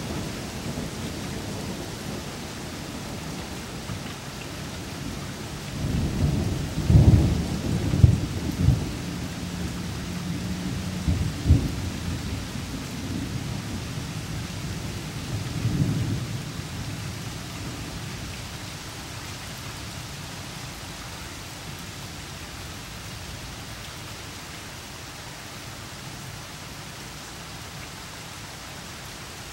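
Steady rain falling, with a thunderclap rolling in about six seconds in: a deep rumble with several loud cracks over the next six seconds, a shorter rumble a few seconds later, then only the rain.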